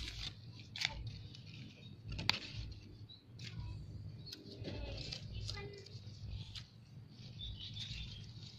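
Leaves and twigs of a potted water apple plant brushing and clicking close to the phone as the plant is handled, with a couple of sharp clicks early on. Faint bird chirps in the background.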